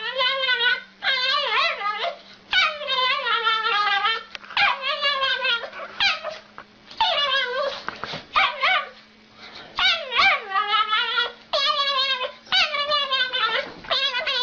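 A dog 'talking': about a dozen drawn-out vocal calls in a row, each with a wavering, bending pitch and short gaps between them.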